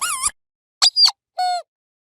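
Squeaky dog toy being squeezed: three short squeaks with pauses between them, the last one steadier and lower in pitch.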